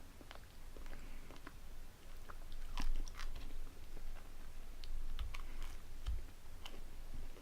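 Close-miked biting and chewing of a Thomas' pumpkin spice bagel, with sharp crunchy clicks clustered about three seconds in and again around five seconds in.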